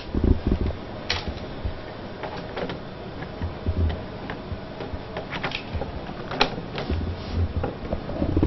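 Irregular clicks, taps and low bumps as the plastic and metal chassis and display of an HP 625 laptop are handled during reassembly.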